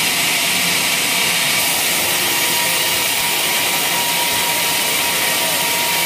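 Vertical band sawmill ripping a waru (hibiscus) log: a steady, loud hiss of the band blade cutting through the wood over the machine's running drive, with a thin steady whine.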